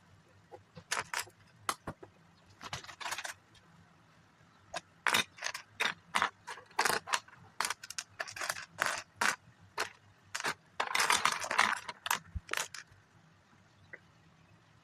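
Loose Lego pieces being handled: a run of irregular sharp plastic clicks and short rattles, with a longer, denser clatter near the end.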